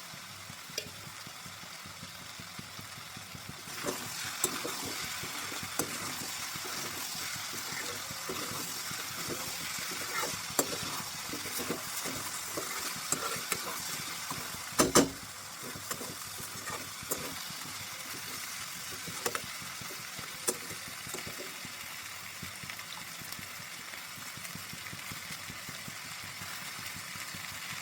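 Cabbage sizzling as it fries in a pan, stirred with a spatula that clicks and knocks against the pan. The sizzle grows louder about four seconds in, and there is a sharp double knock about halfway through.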